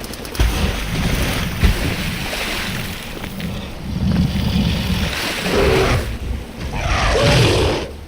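Layered monster-movie sound design: a heavy rumbling wash of noise like surging water and wind, swelling several times, with a brief pitched cry near the end before it fades.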